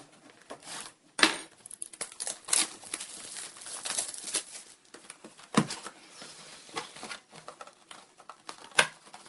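Trading-card packaging being torn open by hand: the wrapper crinkles and crackles irregularly, with a few sharper snaps of tearing, the loudest about a second in, about five and a half seconds in, and near the end.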